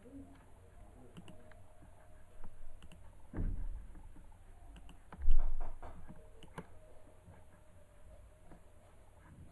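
Scattered light clicks from working a computer, with two dull thumps about three and a half and five seconds in, the second the loudest.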